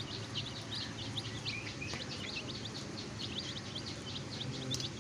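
A group of baby chicks peeping continuously, many short high calls overlapping, over a steady background hum.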